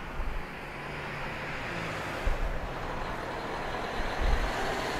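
Outdoor traffic noise: a steady hiss of road vehicles, with irregular low thumps of wind buffeting the microphone.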